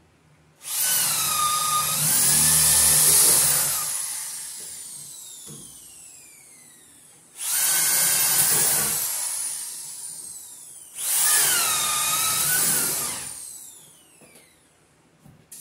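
Corded electric drill boring holes through wooden wall studs in three bursts. The first burst lasts about three seconds and the other two about two seconds each; the motor's whine dips and rises during each, then winds down after it.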